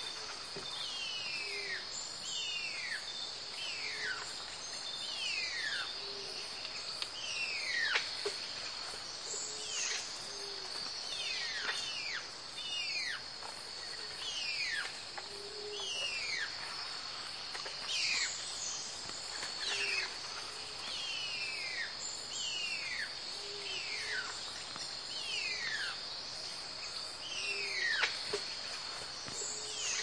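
Rainforest ambience: a steady high insect drone, with a repeated falling whistled call about once a second and short low notes every few seconds.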